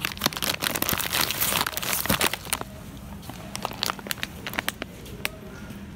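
A plastic bag of dried conchiglie pasta crinkling as it is pulled out of its cardboard shelf box and handled. The crinkling is dense for the first two and a half seconds, then thins to scattered crackles.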